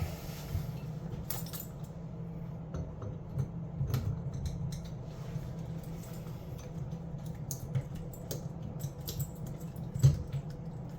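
Scattered small clinks, clicks and knocks of metal tools and fittings being handled during faucet work, over a steady low hum. The loudest knock comes near the end.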